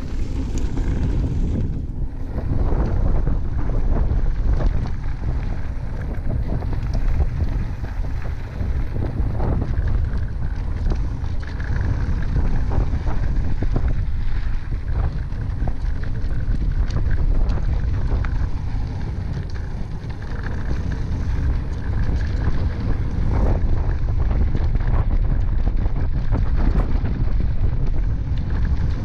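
Wind buffeting the camera microphone while a Haibike DH 9.0 electric mountain bike rides a dry dirt singletrack, with tyre noise on the dirt and frequent small clicks and rattles from the bike.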